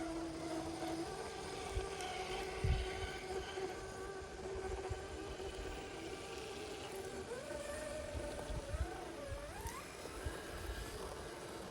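4x4 off-road vehicle engine running under way, its note steady and then rising and wavering with the revs partway through, with low rumble and thumps from the rough track.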